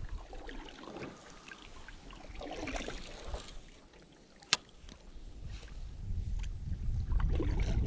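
Quiet handling of a spinning rod and reel in an aluminium boat, with one sharp click about halfway through. Low wind rumble on the microphone builds over the last couple of seconds.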